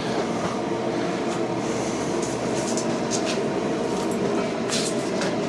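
Recteq Bull 700 pellet grill running just after being switched on: a steady motor hum and fan whir from its start-up, with a few light clicks.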